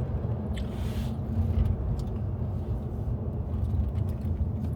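Steady low rumble of a running vehicle, with a brief hiss about a second in and a few faint clicks.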